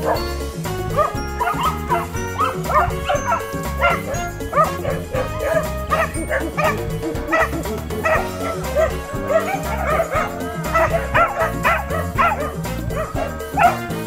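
A pack of Welsh Corgis barking and yipping over and over in quick runs, busiest in the second half, over background music with a steady bass beat.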